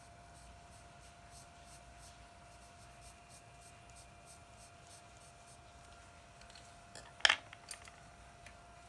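Charcoal pencil shading on drawing paper in short, quick strokes, a faint scratch about three times a second. About seven seconds in there is a single sharp clack, followed by a few small clicks.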